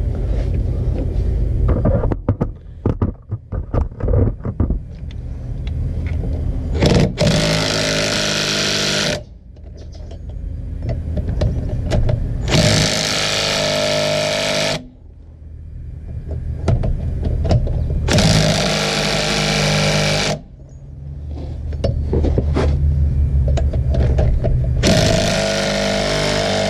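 Impact wrench tightening wheel lug nuts in four separate bursts of about two seconds each, one per nut. Loose clicks and rattles of the socket being set on come before the first burst.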